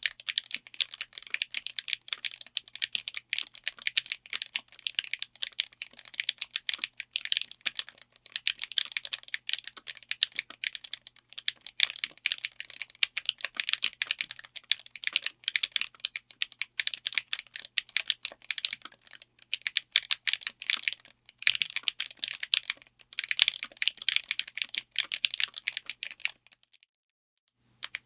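Fast continuous typing on a mechanical keyboard with Akko Dracula linear switches, in a DZ60 board with an FR4 plate in a Tofu60 aluminium case: a rapid stream of keystroke clacks that stops briefly near the end, then starts again.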